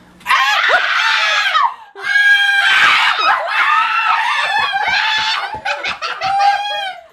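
Young people screaming and shrieking mixed with laughter, in disgust after biting into Bean Boozled jelly beans that may be the skunk flavour. The screams break off briefly about two seconds in, then go on with bursts of laughter.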